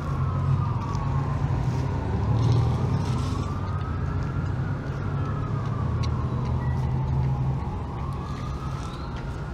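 An emergency vehicle's siren wailing, its pitch slowly rising and falling about every five seconds, over a steady low rumble.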